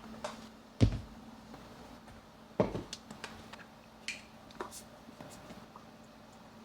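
Two sharp knocks about two seconds apart, with lighter clicks of objects being handled, over a faint steady hum.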